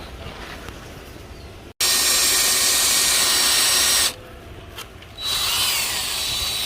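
Power drill running in two runs, a steady drilling whine with a high tone, boring into a main-cap bolt that snapped off in the engine block. The first run stops about four seconds in and the second starts about a second later.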